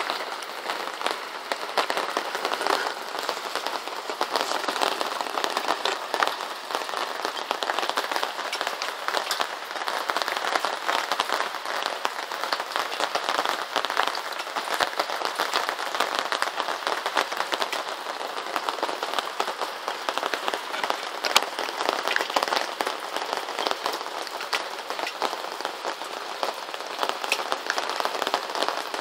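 Steady rain: a constant hiss packed with countless small ticks of individual drops landing, with no pause or change.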